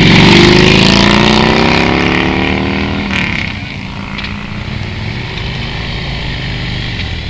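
Harley-Davidson V-twin motorcycle accelerating past close by, its engine note rising, loudest about half a second in and fading about three seconds in. A second motorcycle's engine follows, quieter and steady as it approaches.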